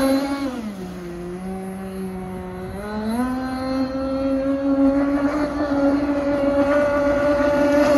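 RC speedboat's 32cc two-stroke petrol engine running hard on the water. About half a second in, the revs drop and hold lower for two seconds. Then they climb back up to a steady high note.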